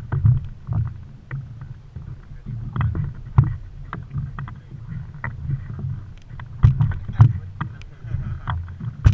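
Water slapping against the hull of a small fishing boat, an uneven low rumble with scattered sharp knocks and clicks.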